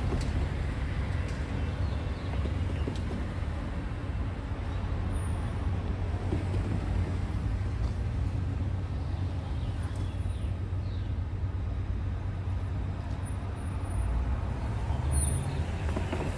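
Road traffic: cars driving by on a city street over a steady low hum of engines.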